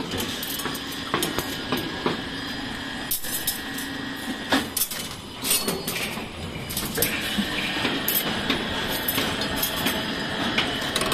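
Electric rebar bending machine running with a steady whine, while steel rebar clanks against its turntable and pins as it is bent into triangular stirrups; sharp metal knocks come several times.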